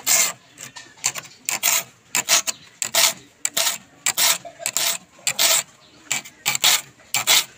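A thin steel hand file rasping across the teeth of a steel handsaw blade in short, quick strokes, about two a second: the saw teeth being sharpened one by one.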